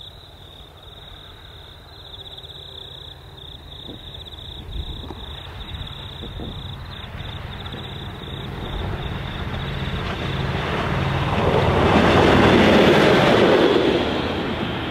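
V/Line Sprinter diesel railcar approaching and passing: a low diesel engine hum and the rumble of wheels on the rails grow steadily, loudest near the end as it goes by, then begin to fade.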